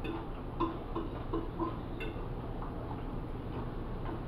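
Eating sounds: a metal fork working at turkey meat on a ceramic serving plate, with a run of light clicks and clinks in the first two seconds over a steady low hum.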